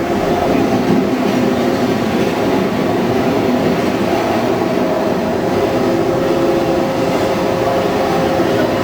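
Subway-style ride train car running steadily on its rails, a continuous rumble of wheels and car with a faint steady whine.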